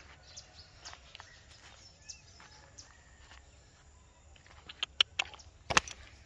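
Quiet outdoor farmyard background with small birds chirping now and then, then a quick cluster of loud, sharp clicks about five seconds in.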